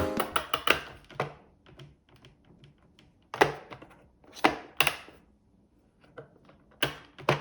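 Irregular sharp clicks and knocks, several close together at the start, a few louder ones in the middle and two near the end, with faint ticks in between.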